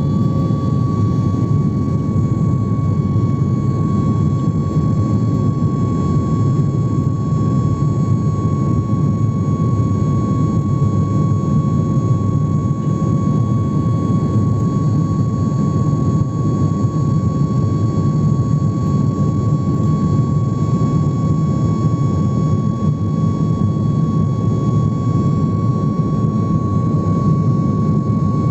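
Jet airliner's engines heard from inside the cabin: a loud, steady rumble of engine and air noise with a steady high whine on top.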